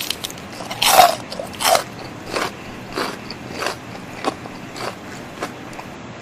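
Crispy fried chicken being bitten and chewed close to the microphone. A loud crunch about a second in is followed by a run of crackly chewing crunches, about one every half second or so, that grow quieter.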